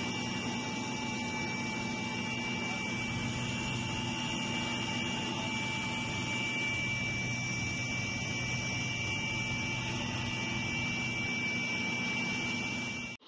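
Helicopter engine and rotor noise heard from inside the cabin: a steady drone with a constant high-pitched whine, cutting off suddenly near the end.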